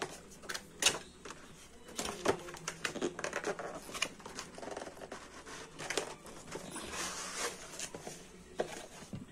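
Cardboard packaging handled by hand: a paperboard retail box opened and its inner cardboard carton slid out and opened, giving an irregular run of short scrapes, taps and rustles.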